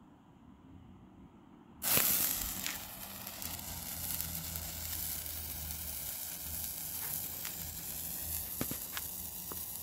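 TNT Morning Glory sparkler catching about two seconds in with a sudden hiss, then burning with a steady hiss and a few scattered crackles.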